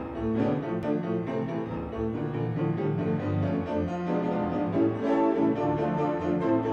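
Piano music playing continuously, a busy run of notes without pause.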